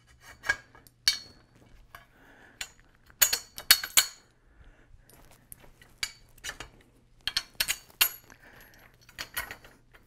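Bolts, nuts and metal hardware clinking and knocking against the metal tube frame of a parts cart as they are fitted by hand, in irregular sharp clicks, busiest about three to four seconds in and again around eight seconds. A faint steady low hum lies underneath.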